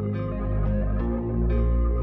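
Background music: soft ambient instrumental with held notes and chord changes about once a second.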